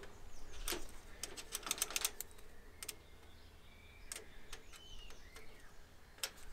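Irregular clusters of light clicks and taps from a small screwdriver and fingers working the screws and moving parts of a garden-railway track switch, the screws set too tight and the switch stiff. A few faint bird chirps in the middle.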